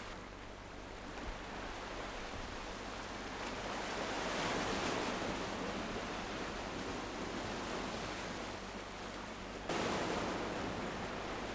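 Small sea waves washing over a rocky shore: a steady surging wash that swells in the middle and jumps suddenly louder near the end.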